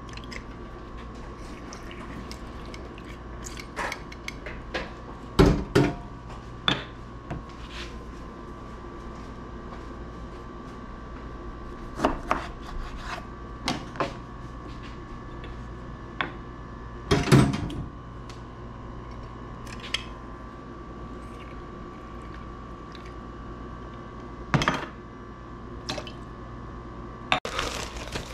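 Scattered clinks, taps and knocks of bar tools being handled on a kitchen counter: a metal hand citrus press squeezing lime, a knife on a wooden cutting board, steel shaker and jigger set down. A few louder knocks stand out, over a steady hum.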